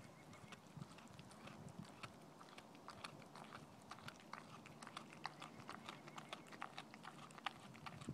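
A dog chewing and biting at a slab of raw green tripe: faint, irregular wet clicks of teeth and jaws, several a second.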